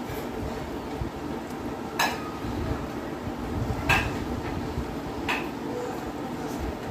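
A hand gathering food from a stainless steel plate, the fingers clinking against the metal three times, about two, four and five seconds in, over a low steady rumble.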